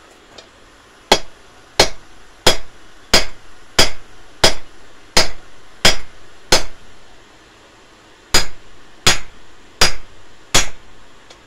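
Hand hammer striking red-hot steel on an anvil while forging a tent peg, each blow with a short metallic ring. Nine blows at a steady pace of about one and a half a second, a pause of nearly two seconds, then four more.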